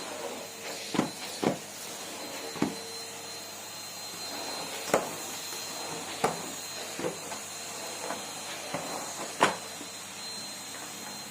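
Numatic Henry vacuum cleaner running with a steady hiss, with about a dozen sharp, irregular knocks and clicks over it.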